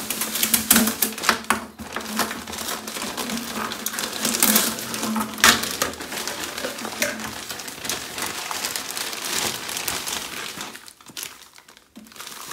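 Thin plastic packaging bags crinkling and rustling as a new plastic bathtub drain trap kit is pulled out of them by hand. The sound dies down about a second before the end.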